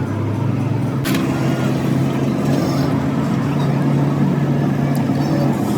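A vehicle engine running steadily, with a sharp click about a second in.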